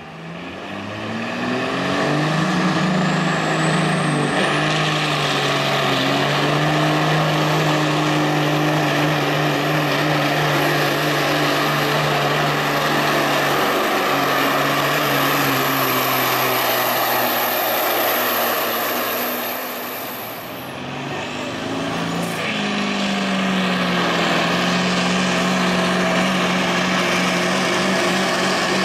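Heavy diesel semi-truck engine at full throttle dragging a pulling sled. Its note climbs over the first couple of seconds, with a rising high whine, then holds steady under load. About 20 seconds in it fades, and a second engine, a Mack Superliner's diesel, comes in under load about two seconds later.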